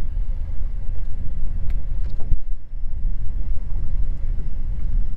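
Steady low rumble on a small fishing boat at sea, with a few faint clicks.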